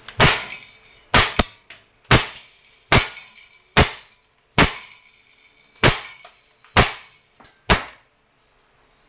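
Umarex Heckler & Koch VP9 CO2 airgun pistol firing about nine shots, roughly one a second, with a few lighter knocks between them. The shots stop near the end.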